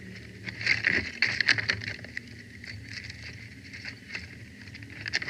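Sticks of a bald eagle nest crackling and snapping as the eagle works them with its beak and feet. A dense run of sharp crackles comes about a second in and lasts about a second, with scattered single clicks after and a few more near the end.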